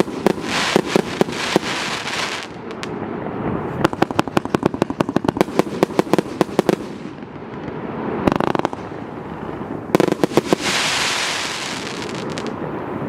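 A 200-shot, 1.2-inch consumer fireworks cake firing: rapid runs of shots, several a second, broken by short pauses, with the shells' crackling bursts between the runs.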